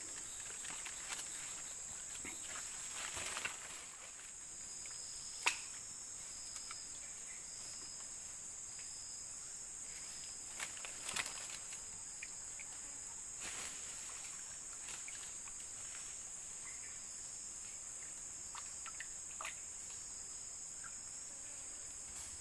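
Tropical forest insects shrilling steadily at a high pitch, joined for several seconds by a higher pulsing chirp that repeats a little more than once a second. Scattered clicks and knocks, with a few louder short sounds in the first few seconds.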